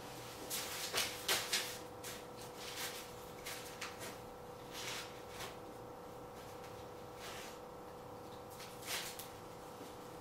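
A dog rooting through spilled garbage makes irregular rustling and crinkling of wrappers and paper, busiest in the first five seconds and again briefly near nine seconds. A steady faint hum runs underneath.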